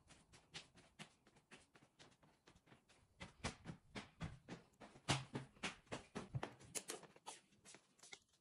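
Faint, quick clicks of footsteps on a hard floor, about three or four a second, growing louder in the middle and fading near the end.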